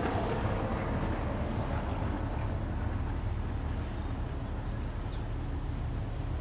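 Low steady rumble of a passing cargo ship's engine, with five short, high bird chirps scattered through it.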